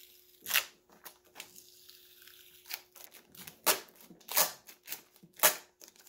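A stuck adhesive warning sticker being picked and peeled off the side of a 12 V compressor fridge cooler, tearing apart as it comes away. It makes short crackling rips, one about half a second in and several louder ones in the second half.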